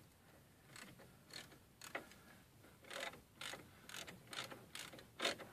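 Hand ratchet wrench being swung back and forth, each stroke a short burst of pawl clicks, about two strokes a second, starting under a second in and growing louder toward the end.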